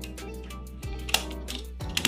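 Background music with sustained tones, over a few sharp clicks of small plastic parts being handled, the loudest a little past one second in and another near the end.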